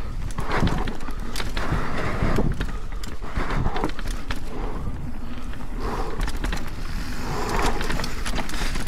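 Propain Spindrift AL 29 mountain bike descending a rough forest trail: Schwalbe Magic Mary/Big Betty tyres rolling and scrabbling over dirt and roots, with frequent rattles and clicks from the bike, and the rushing noise of riding speed.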